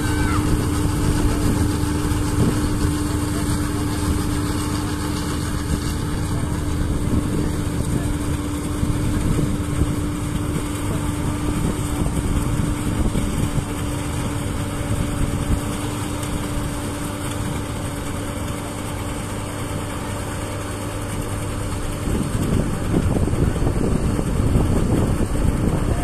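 Combine harvester running while it cuts wheat: a continuous engine drone with a steady hum, turning rougher and a little louder near the end.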